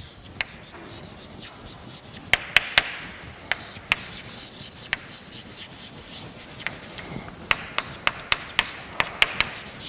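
Chalk writing on a blackboard: sharp taps and short scratches of the chalk strokes, sparse at first and coming thick and fast in the last few seconds.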